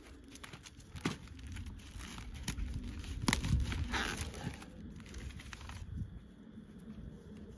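Newly lit campfire of dryer lint and a small cardboard box catching, crackling with irregular sharp pops and crinkling.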